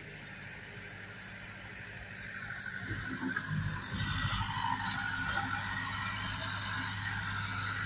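Diesel engine of a Same orchard tractor running steadily while tilling. It grows louder about three seconds in, with a few low knocks.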